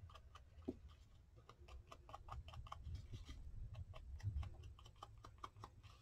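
Faint, irregular light ticks and taps, several a second, over a low steady hum.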